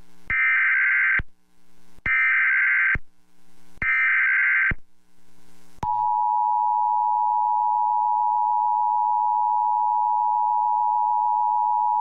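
Emergency Alert System broadcast tones: three bursts of SAME header data tones, each just under a second long, then from about six seconds in the steady two-tone EAS attention signal. It heralds a National Weather Service flash flood warning.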